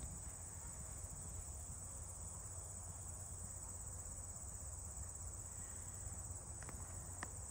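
Steady high-pitched insect chorus of crickets in the grass, over a low rumble, with two faint clicks near the end.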